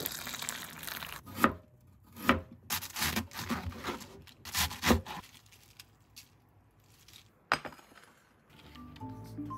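Kitchen knife chopping lettuce on a plastic cutting board: a run of uneven chopping strokes, then a single knock later on. Background music comes in near the end.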